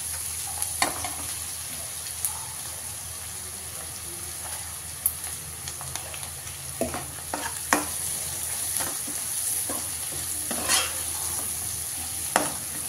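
Onions and curry leaves frying in oil in a kadai, a steady sizzle throughout. A steel spoon stirring them scrapes and knocks against the pan about nine times.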